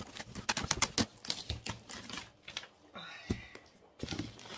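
Cardboard delivery box being pulled open and its packaging handled: a quick run of crackles, clicks and rustles from the card flaps and plastic-wrapped bedding, with a thump and a brief squeak about three seconds in.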